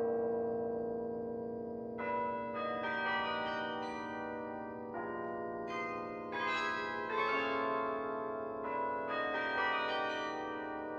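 Bok Tower carillon's bronze bells played from the baton keyboard. A chord struck just before rings on and slowly fades, then from about two seconds in new notes enter one after another, each ringing on under the next.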